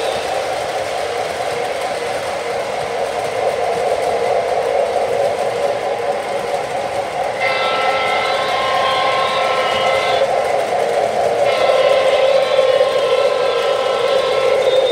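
O scale model trains running on three-rail track, a steady hum of motors and wheels. Two long multi-note blasts from a model locomotive's sound system, one about seven seconds in and another about eleven seconds in that lasts to the end.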